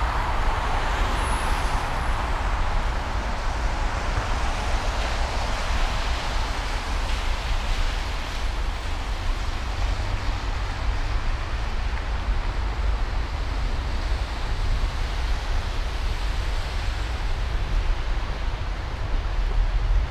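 Steady city street traffic noise, a continuous wash of passing cars with a deep rumble underneath, a little louder in the first few seconds.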